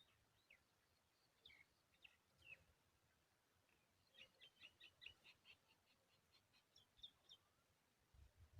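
Faint high bird chirps: a few single short notes, then a quick run of chirps about halfway through.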